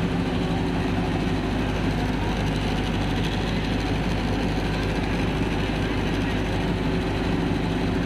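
A tractor-powered rice mill running: the Farmtrac tractor's diesel engine holds a steady load as it drives the mill's huller and double polisher. The engine and mill together make a steady, unbroken mechanical din.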